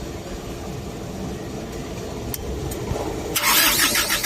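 Diesel truck engine sound, a steady low rumble; a little over three seconds in, a loud hissing rattle with a fast, even beat sets in.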